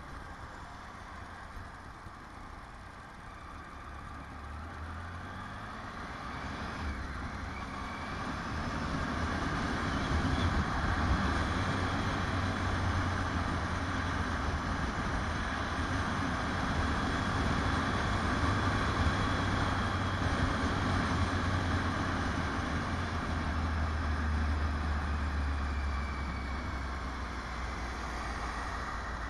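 Motorcycle engine running under way, mixed with rushing wind noise, as the bike picks up speed; it grows louder over a few seconds about six to ten seconds in, holds steady, then eases slightly near the end.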